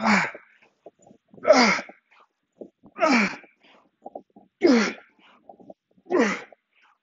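A man's forceful grunting exhalations, one with each swing of a 48 kg kettlebell, five in a row about a second and a half apart, each sliding down in pitch: the breathing of heavy, tiring effort.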